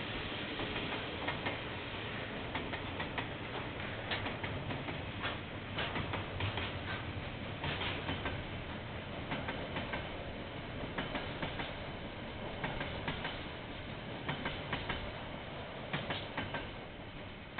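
Freight train of container and tank wagons rolling past, steady rumble with irregular clacking of wheels on the track. The sound begins to fade near the end as the last wagons go by.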